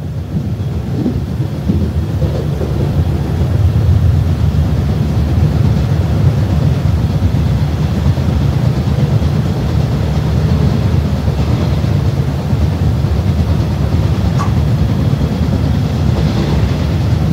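Running noise heard inside a JNR 165-series electric multiple unit carriage: a steady low rumble of the train moving along the track. It fades in over the first few seconds, then holds even.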